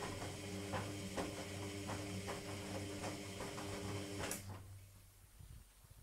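Logik front-loading washing machine on its main wash: the drum motor hums steadily as the drum turns, with soft irregular thuds and sloshing from the wet laundry tumbling. A little over four seconds in there is a click and the motor stops, the drum pausing between tumbles.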